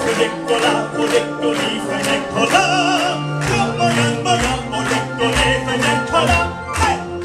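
A man sings into a handheld microphone over a backing track with a steady beat, holding one long wavering note about halfway through.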